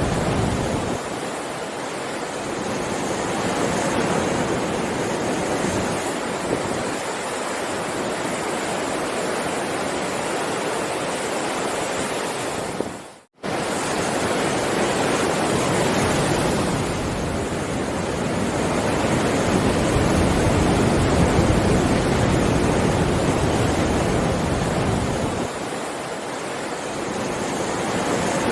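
Heavy ocean waves breaking and washing in continuously, swelling and easing slowly. About halfway through the sound cuts out for an instant and returns.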